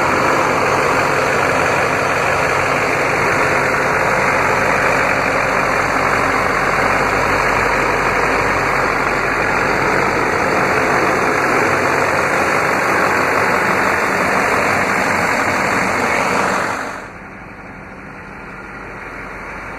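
6.6-litre Duramax V8 diesel idling steadily and loudly, heard close up with the hood open. About seventeen seconds in it drops away to a much quieter background.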